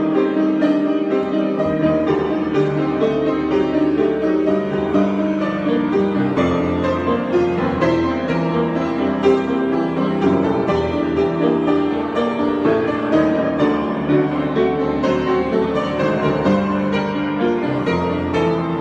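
Solo piano improvisation, played continuously with many overlapping notes and chords.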